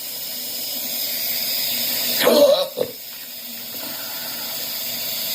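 A single hiccup a little over two seconds in, a short voiced gulp ending in a sharp click, from a man with intractable (chronic, unremitting) hiccups. A steady hiss runs underneath and slowly grows louder.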